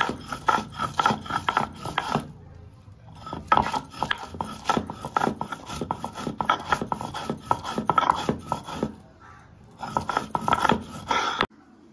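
Green chillies and salt being ground on a Bengali sil-nora: a cylindrical grinding stone rocked and scraped over a grooved stone slab in quick, even strokes, about four a second. It pauses briefly twice and stops near the end.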